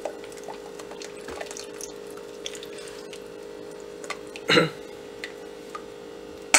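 Thin egg-yolk, yogurt and broth mixture pouring and dripping through a fine-mesh metal strainer into a soup pot, with scattered small taps over a steady hum. There is one louder knock about four and a half seconds in.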